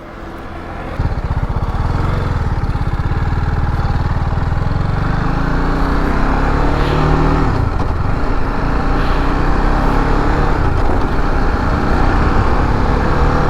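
TVS Apache RR310's single-cylinder engine on its stock exhaust, running under way with wind and road noise. The engine note climbs through the middle and dips briefly about eight seconds in, then carries on steadily.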